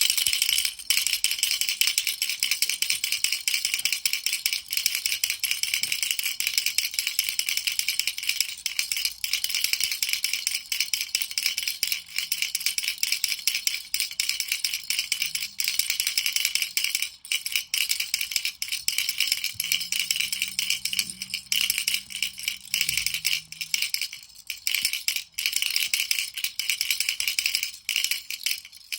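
Baby rattle shaken continuously, a dense fast rattling with brief momentary breaks.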